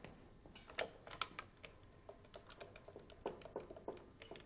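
Faint, irregular clicks of a telephone handset being handled and its number dialed, about a dozen small clicks at uneven spacing.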